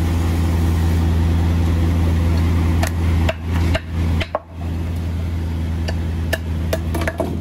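A steady low engine hum, with a run of sharp knocks and clicks from about three seconds in as a worker works at the shipping container's floor edge.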